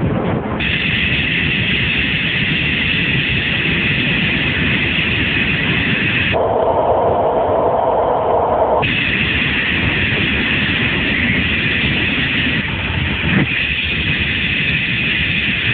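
Loud, steady vehicle noise with a rushing, rumbling character, its tone changing abruptly about six seconds in and changing back about three seconds later.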